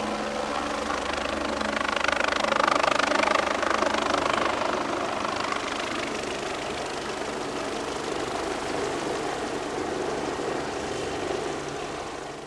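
Helicopter running steadily overhead, its engine and rotor a constant whine and drone that swells a little about two seconds in, typical of a helicopter lifting HVAC units onto a roof.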